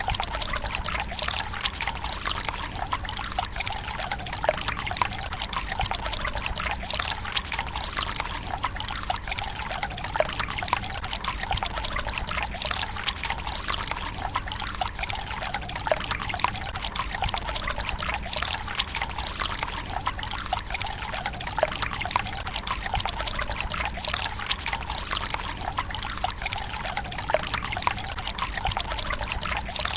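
Japanese tsukubai: water running steadily from a bamboo spout into a stone basin, a continuous trickle with small irregular splashes and drips.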